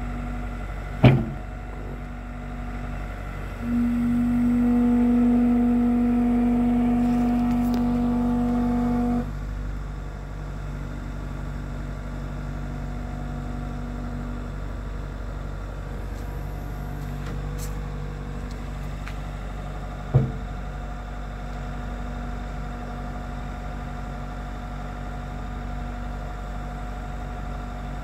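Bobcat T66 compact track loader's diesel engine running steadily, with a louder, higher hum for about five seconds, starting about four seconds in, as the hydraulics lift the boom. Two sharp knocks, one about a second in and one about twenty seconds in.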